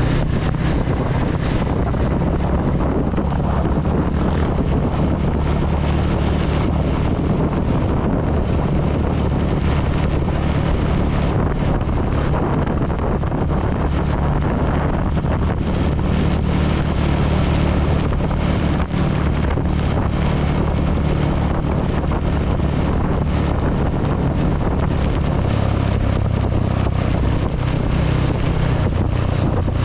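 CB 250 motorcycle engine running steadily under way, its low note shifting slightly near the end, mixed with steady wind and heavy-rain noise on the microphone.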